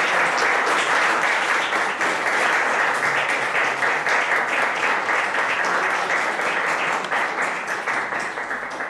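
Audience applause: dense, steady clapping from a seated crowd that dies away at the very end.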